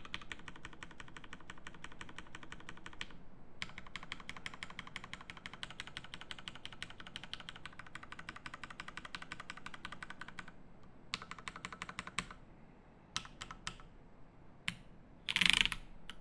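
Fast typing on a TGR Jane V2 CE mechanical keyboard with lubed Cherry Hyperglide Black linear switches, carbon plate and GMK keycaps: steady runs of keystrokes with a brief pause about three seconds in. After about ten seconds it slows to a few short bursts and single keystrokes, then one louder, longer clatter near the end.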